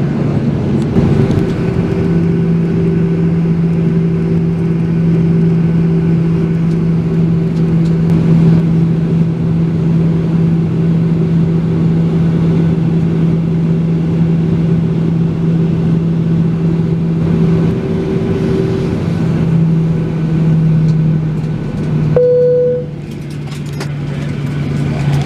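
Cabin noise of a Boeing 737-800 at the end of taxi-in: a steady hum of its CFM56 engines at idle and the air conditioning, with a constant low drone. Near the end a single cabin chime sounds, the seatbelt sign going off at the gate, and the cabin noise then drops as the engines wind down.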